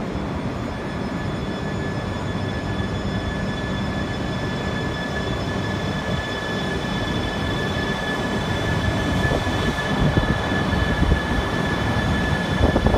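Toreiyu Tsubasa shinkansen train (E3 series 700) pulling out of the station and rolling slowly along the platform. It makes a steady low rumble that slowly grows louder as the cars pass, with a thin steady high whine over it from about a second in.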